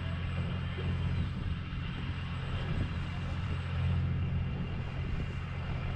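A fishing boat's onboard machinery running with a steady low drone.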